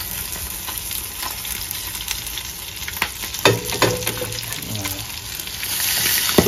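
Stingray fillet frying in a shallow pool of hot butter in a frying pan: a steady sizzle, with a few sharp clicks of wooden chopsticks against the pan about three seconds in. The sizzle grows louder near the end as the fillet is pushed around in the butter.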